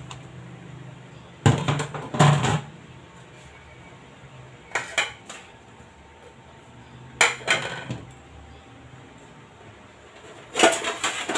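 Kitchenware being handled and set down on a countertop: a handful of short knocks and clatters, in about five separate bursts with quiet between.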